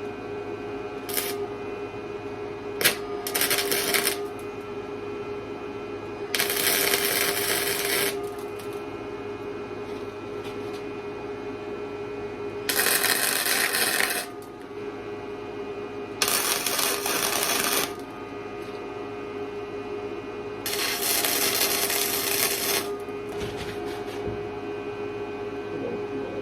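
Welder tacking and welding a steel gusset onto a truck frame: five bursts of arc crackle, each one to two seconds long, with a couple of sharp clicks before the first. A steady hum runs underneath.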